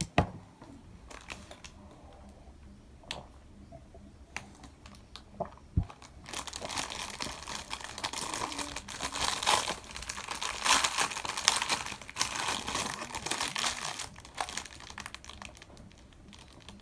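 A few light clicks and knocks, then a thin plastic bag crinkling in the hands for several seconds as an orange is unwrapped from it.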